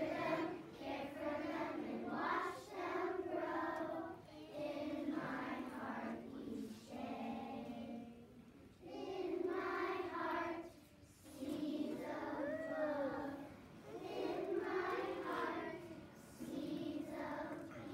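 A choir of young children singing a song together, in phrases of a few seconds with short breaks between the lines.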